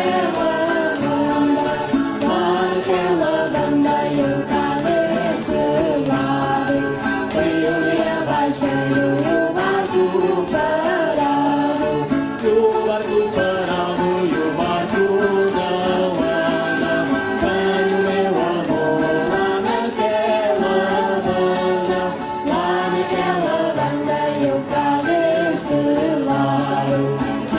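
Background music with singing.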